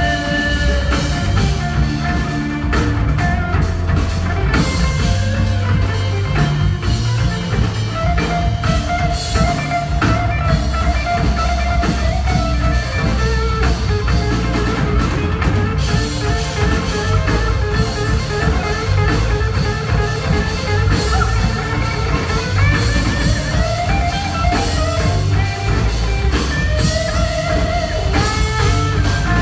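Live band playing an instrumental passage: electric guitar melody over bass, drum kit and tabla.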